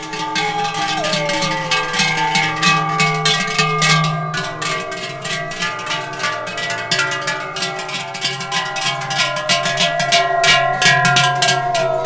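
Large cowbells on the herd clanging continuously, several bell pitches ringing together, while herdsmen yodel with long held notes that slide and waver.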